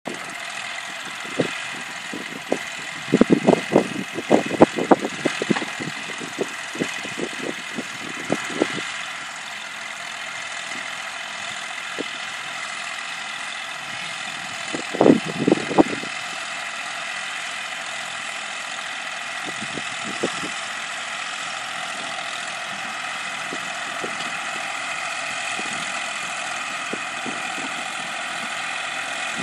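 Small red tractor's engine running steadily as it pulls a harrow across the field. Irregular bursts of thumps and rumble hit the microphone, loudest about three to six seconds in and again around fifteen seconds.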